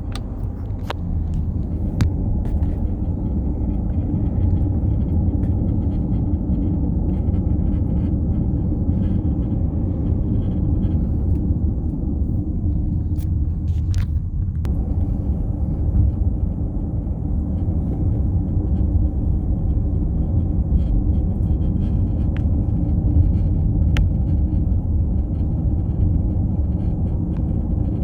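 Steady low rumbling buzz from a 2018 Audi Q7, the buzzing noise its owner is recording, with scattered faint clicks. About halfway through, the higher part of the noise fades, then comes back suddenly.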